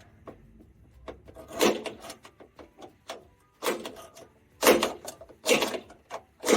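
Sharp metal-on-metal knocks, about five strikes at uneven spacing, each with a short ring, as a pin is worked out of a metal door bracket.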